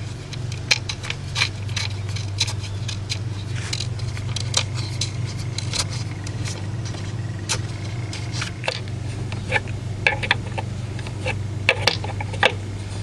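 Wrench clicking lightly against metal while a new PCV valve is threaded in and tightened on a Chrysler 2.7 V6: irregular short metallic clicks, one or two a second, over a steady low hum.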